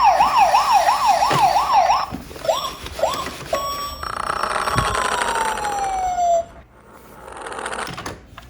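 Siren sounds: a fast wail rising and falling about four times a second, breaking off after about two seconds into three separate rising whoops, then a brief steady tone and a long falling tone. A quieter rising hiss follows near the end.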